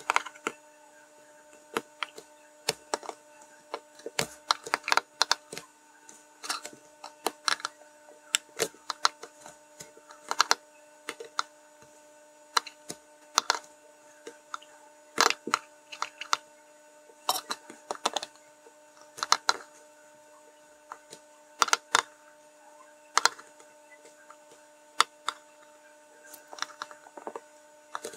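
Small sharp clicks and taps at irregular intervals from metal tweezers and a small circuit board being handled on a work surface, as tiny surface-mount LEDs are placed and soldered. A faint steady hum runs underneath.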